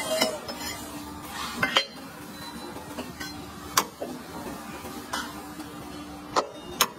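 Kitchen clatter of metal utensils: several sharp clinks and knocks at irregular intervals, over a steady low hum.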